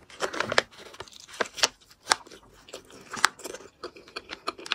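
A person biting and chewing a spicy braised duck leg, close to the microphone: irregular sharp clicks and short smacks. The roasted-then-braised meat is very chewy.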